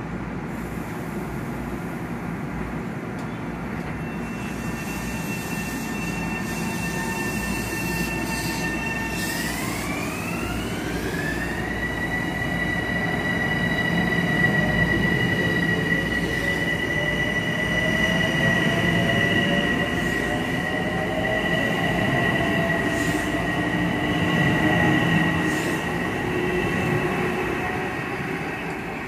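Metro-North electric multiple-unit train moving through the station: a high electrical whine whose tones glide upward about ten seconds in and then hold steady, over the rumble of the cars, which grows louder through the middle and eases near the end.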